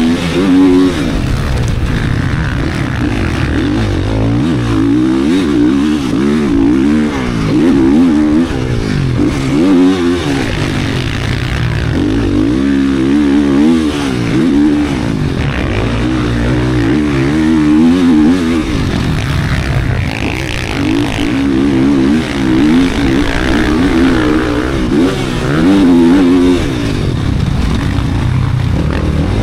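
GasGas 450 four-stroke single-cylinder motocross bike with a race-built engine, ridden hard. The engine revs up and drops back over and over, every second or two, as the throttle is opened and shut.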